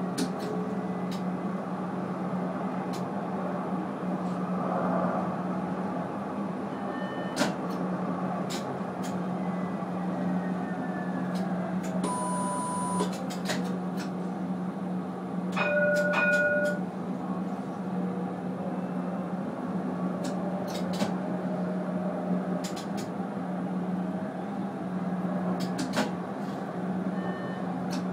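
Tram running along its track, heard from inside: a steady electric hum with rolling noise and scattered clicks. Short electronic beeps sound about twelve seconds in, a higher beep on several notes at once about four seconds later, and another beep near the end as it comes into a stop.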